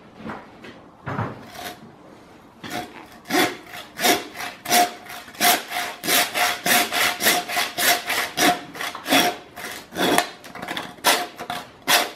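Hand saw cutting through beef rib bones in back-and-forth strokes. The strokes are slow and sparse at first, then settle into a quick, steady rhythm of about three a second, with a faint steady tone under them.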